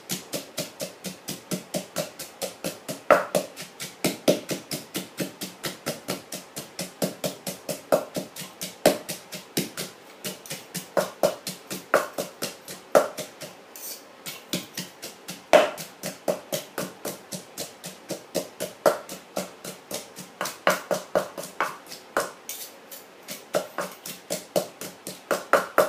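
Wooden pestle pounding chillies, garlic and sugar in a clay mortar: a fast, even rhythm of knocks, with some strokes louder than others.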